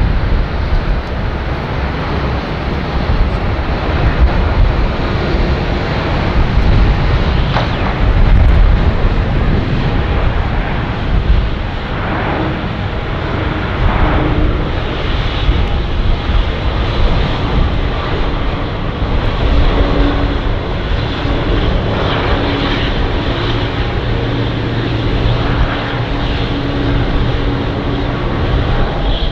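The jet engines of a Singapore Airlines Cargo Boeing 747-412F during touchdown and landing rollout: a loud, steady rush over a deep rumble. Brief whining tones rise and fall about halfway through, and a steady low hum runs through the latter part.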